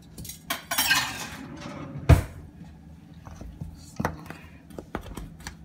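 A metal utensil scraping and knocking against a stainless steel mixing bowl while butter is worked into flour. A sharp, heavy knock comes about two seconds in, with a few lighter taps after it.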